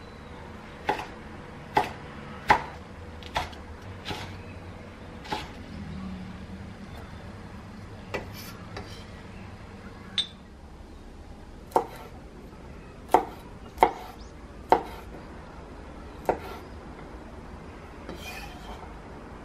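Kitchen knife chopping on a wooden cutting board: about a dozen sharp, irregular knocks in two clusters with a pause between, as chili peppers and then walnuts are sliced.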